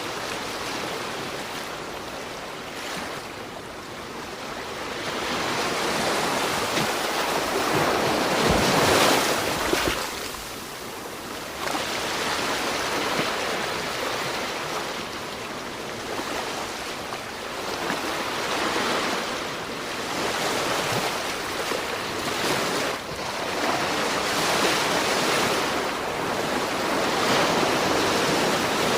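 Sea waves breaking and washing on a shore, the surf swelling and ebbing every few seconds.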